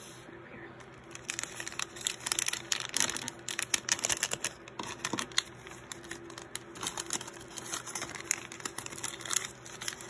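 Shiny plastic-foil blind-bag pouch crinkling and crackling irregularly as it is handled.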